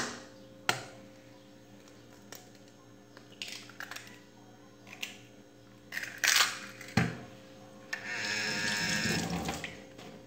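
An egg being cracked into a glass bowl: two sharp taps of the shell in the first second, then scattered small clicks and crackles of eggshell. Near the end a tap runs for about a second and a half.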